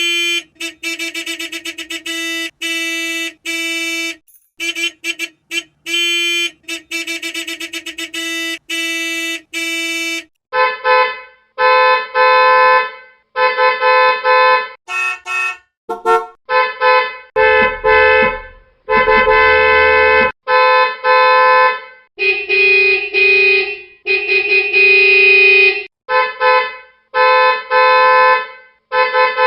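A rapidly pulsing electronic alarm tone for about ten seconds, then a horn honking over and over in short and longer blasts.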